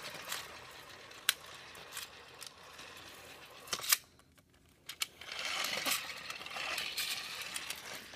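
Nerf Zombie Strike CrossCut's plastic saw-blade mechanism being worked by its button. A few sharp plastic clicks come first, then a short lull, then from about five seconds in a steady whirring rattle as the orange saw blade spins.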